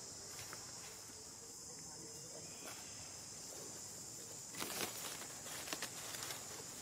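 Steady high-pitched drone of insects, with a few short clicks or knocks a little over four seconds in.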